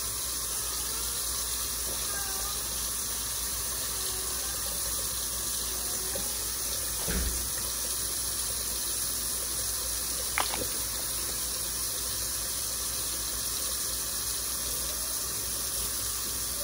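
Kitchen faucet running steadily, its stream pouring into a stainless steel sink, with two brief knocks partway through.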